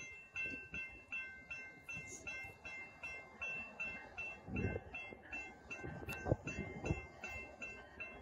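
Railway level-crossing warning bell ringing steadily, about three strikes a second, signalling an approaching train. A few low rumbles come about halfway through.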